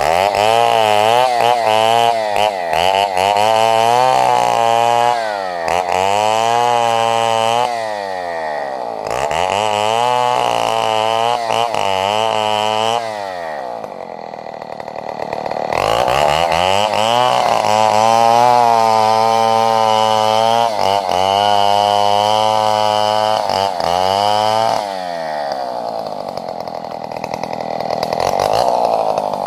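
Chainsaw at high revs cutting wood, its engine pitch sagging under load and picking up again over and over. It drops back to a lower idle briefly about a third of the way in, for a few seconds around the middle, and again near the end.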